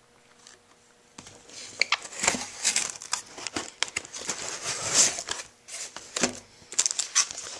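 Cardboard box being opened by hand: the lid scraping free and the packing inside rustling and crinkling in an irregular run of crackles and clicks, starting about a second in.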